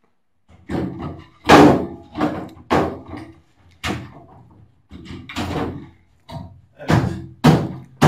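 The top cover of a Vestel washing machine being lowered and pushed into place on the cabinet: a series of about ten separate thunks and knocks, the loudest about one and a half seconds in.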